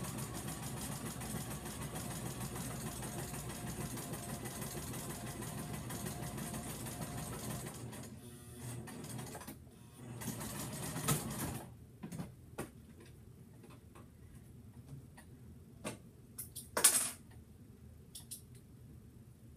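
Electric home sewing machine running as it stitches a zigzag seam through stretchy fabric. It runs steadily for about eight seconds, pauses briefly, runs again for about two seconds, then stops. After that come a few scattered clicks and knocks, one louder knock near the end.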